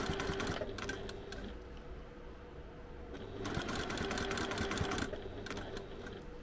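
Domestic sewing machine stitching slowly through a thick stack of fabric layers, run in short spurts: a burst at the start, a longer run from about three and a half to five seconds in, then a few brief stitches near the end.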